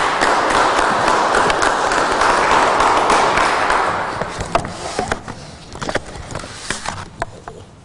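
Audience applauding. It is strong for about four seconds, then dies away to a few scattered claps near the end.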